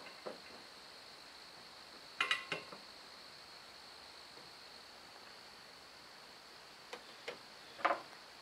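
Steady high-pitched drone of insects, with a quick cluster of light metallic clinks about two seconds in and a few short clicks near the end as wiring parts are handled.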